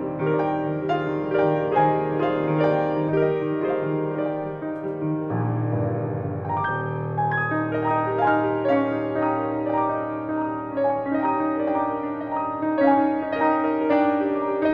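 Solo piano music: a melody of single notes over held low bass notes, with a new bass note about five seconds in.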